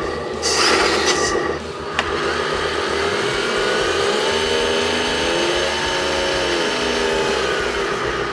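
Small electric motor and gear train of a 1/14 scale RC truck whirring: the truck's 540 brushed motor driving through its 3-speed gearbox. It is loud and harsh for the first second and a half, there is a sharp click about two seconds in, and then a steadier whine whose pitch dips and comes back up as the motor slows and speeds up again.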